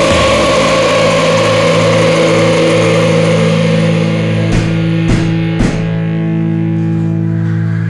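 Rock song ending on a held electric guitar chord that rings on steadily, with three sharp hits about half a second apart a little past the middle.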